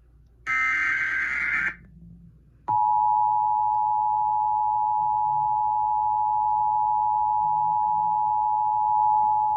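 Emergency Alert System tones: a one-second burst of the buzzing SAME digital header, then, after a short gap, the steady two-tone attention signal starts about two and a half seconds in and holds unbroken. Together they herald a severe thunderstorm warning.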